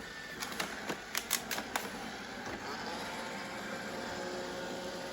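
A quick series of sharp plastic clicks and knocks, then a Roomba robot vacuum's motors starting up about three seconds in with a steady whir.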